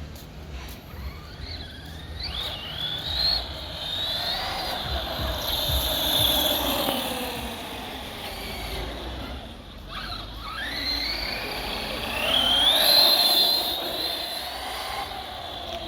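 Arrma Kraton 4S RC truck running on a newly fitted Hobbywing QuicRun brushless motor and ESC: a high motor whine that rises and falls in pitch with the throttle, in two long runs with a short drop near the middle.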